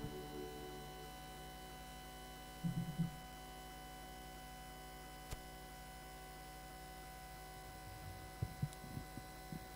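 Faint steady electrical mains hum from the recording equipment, many steady tones stacked together. A brief low sound about three seconds in, a single click a little past the middle, and a few small faint sounds near the end.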